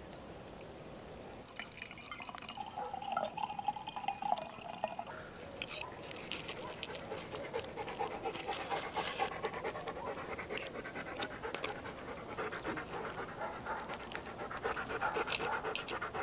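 Knife and fork cutting into the baked skin of a whole oven-roasted sturgeon on a platter: crackly, rasping strokes with sharp clicks of metal. The sound grows busier about five seconds in, after a brief pitched scrape of a utensil.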